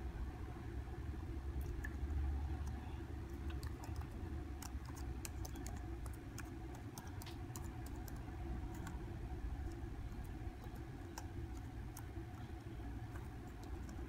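Typing on a computer keyboard: irregular runs of key clicks as an email address and then a password are entered, over a steady low hum.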